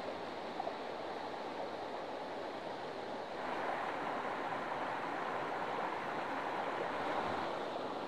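River water flowing steadily over a stony bed, a little louder from about three and a half seconds in.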